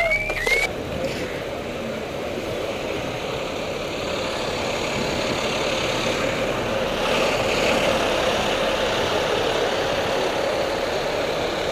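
Fire truck siren giving quick, repeated rising whoops that cut off under a second in, followed by the steady running of the idling fire engine.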